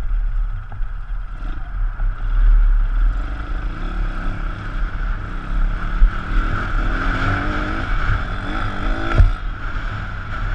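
160 cc four-stroke pit bike engine being ridden hard, its revs rising and falling, with a sharp knock about nine seconds in.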